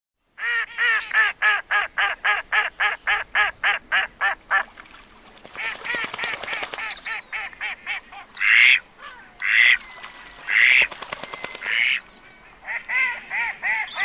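Ducks quacking. A fast run of short quacks, about five a second, is followed by scattered quacks, then four louder, longer quacks about a second apart, and another quick run near the end.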